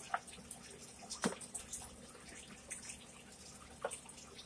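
Chewing with the mouth open: faint, wet smacking and clicking of soft food being chewed, with a sharper click about a second in and another near the end.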